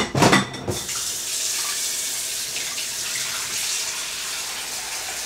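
A short clatter of kitchenware in the first second, then a steady hiss that runs on without a break.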